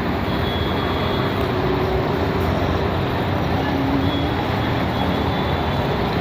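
Heavy rain driven by strong wind, a loud steady rushing noise.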